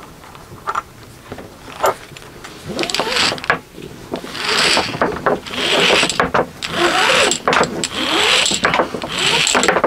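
Braided rope pulled hand over hand through a metal double pulley block, a run of rasping swishes about one a second from about three seconds in, with light clicks and rattles from the block.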